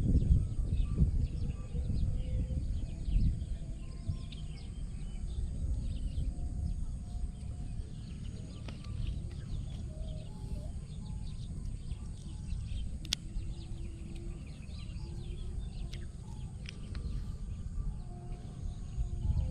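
Outdoor field ambience: a steady low rumbling noise on the microphone, with many short high chirps of small birds scattered throughout.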